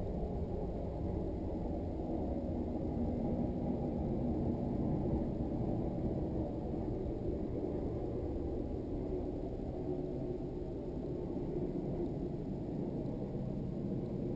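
Toyota GT86 race car's flat-four engine idling while the car sits stationary, heard inside the stripped cabin as a steady low rumble.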